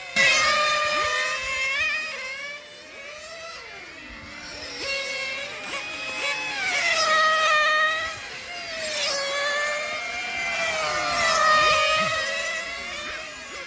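Several nitro-engined RC race cars running flat out through a banked curve, their small engines screaming. The pitch rises and falls in waves as one car after another passes at speed.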